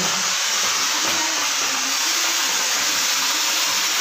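Firework rocket strapped to a toy car, burning with a steady loud hiss as it sprays sparks.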